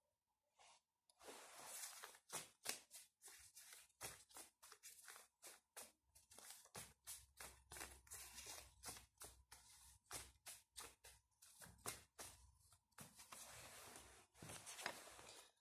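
A deck of tarot cards being shuffled by hand: a faint, quick run of card flicks and slides, with short pauses between bouts.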